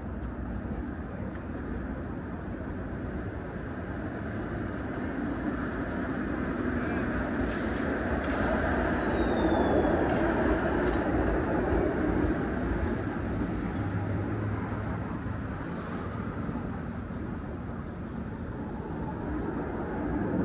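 Street traffic: a vehicle passing, its sound swelling to a peak about halfway through and then fading.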